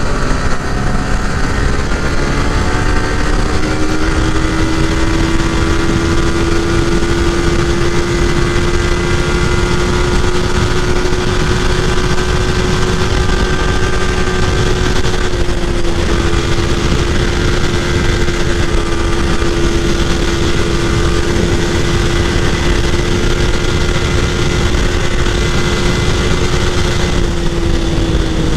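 Motorcycle engine running hard at high, nearly steady revs while riding. The pitch climbs over the first few seconds, dips slightly about halfway through and falls away near the end, under constant wind rush on the microphone.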